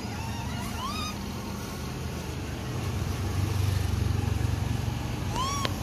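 Rhesus macaques giving short high calls, each rising then falling in pitch: a few about a second in and a louder one near the end, over a steady low rumble.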